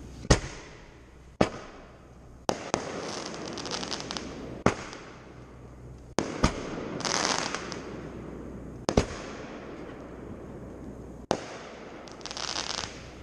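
Aerial fireworks bursting: about eight sharp booms at irregular intervals, several followed by a second or so of high crackling.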